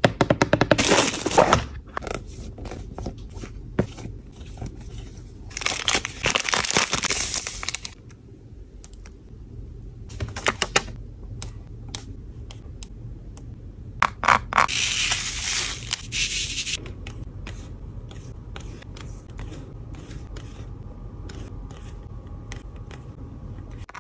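Diamond-painting kit being handled: three louder bursts of rustling and scraping of packaging and plastic, near the start, around a quarter of the way in and past the middle, with many small clicks and taps of resin rhinestones on the tray and sticky card between them.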